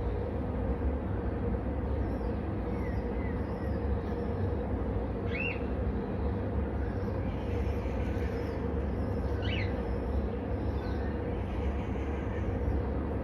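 Steady low rumble with a faint constant hum, and a few short bird chirps over it, the clearest two about four seconds apart. No sneeze or nose blowing stands out.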